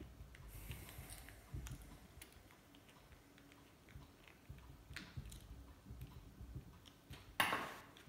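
Small clicks and taps of hands working a plastic gas utility lighter, then near the end one louder clatter that fades over about half a second, as a small screwdriver is set down on a wooden table.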